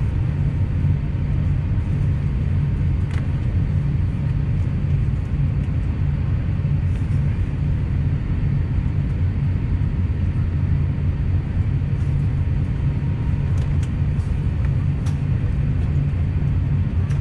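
Steady low cabin rumble inside an Airbus A350-900 taxiing to the gate after landing, with a few faint clicks.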